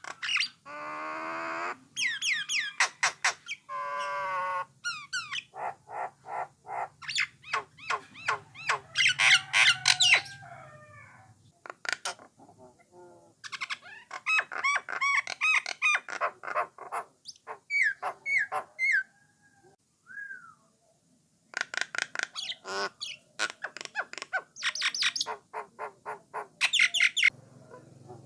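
A jalak nias, the brown myna also called jalak coklat, singing a long, varied song. It mixes fast runs of clicks, gliding whistles, warbled notes and harsh trills, broken by short pauses.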